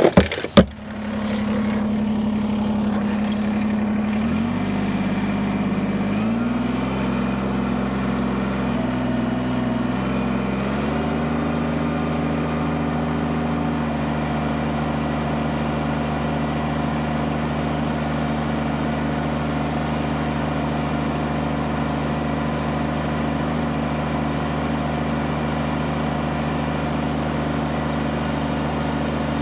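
Gravel briefly rattling out of a bucket into a plastic barrel, then a Kubota BX compact tractor's three-cylinder diesel engine running steadily. Its pitch rises in three steps over the first eleven seconds as the throttle is opened to about 3100 rpm for a full-pressure loader lift of 800 lb on the pallet forks, then holds.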